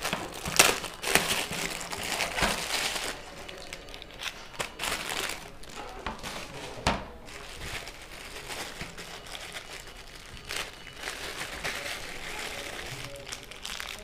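Clear plastic wrapping crinkling and rustling as it is pulled off a device by hand, busiest in the first few seconds, then lighter crackles as small plastic bags of wires are handled.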